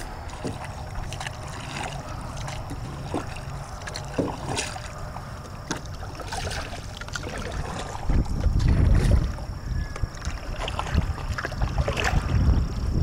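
A small boat being hand-paddled, the wooden paddle dipping and knocking against the hull. Scattered knocks throughout, with wind rumbling on the microphone from about eight seconds in.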